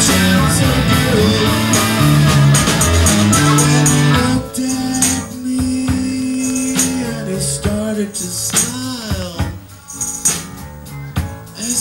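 Live blues music: guitar with a shaken tambourine, and long bending notes in the second half.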